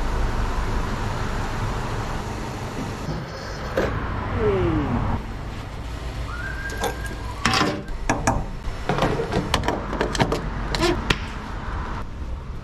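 Diesel running from a high-flow pump nozzle into a lorry's fuel tank, a steady rushing hiss. From about seven seconds in come a series of sharp clicks and knocks as the nozzle is handled at the end of filling.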